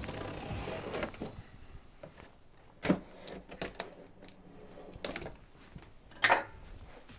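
Scissors cutting security tape on a cardboard shipping box: a rough scrape of blade on tape and cardboard at the start, then scattered sharp clicks and snaps, the loudest about three seconds and six seconds in.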